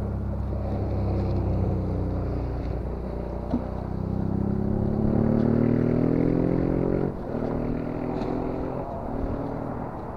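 A motor vehicle's engine running, rising in pitch for a few seconds as it speeds up, then dropping away about seven seconds in.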